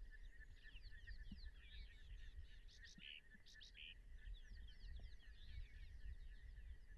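Faint chorus of birds chirping in many short, quick calls, over a steady high pulsing trill and a low rumble.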